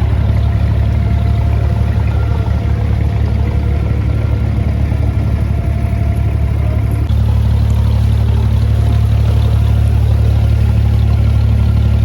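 Abra water taxi's inboard diesel engine running steadily under way, a deep, even hum that grows a little louder about seven seconds in.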